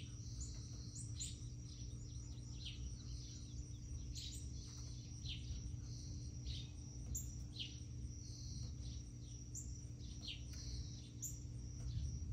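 Small birds chirping: short, sharp downward chirps, one or two a second, over a steady high whine and a low background rumble.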